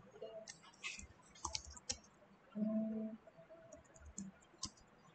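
Computer keyboard keys clicking in scattered single strokes as a few letters are typed. About two and a half seconds in, a brief low hum lasts about half a second and is the loudest sound.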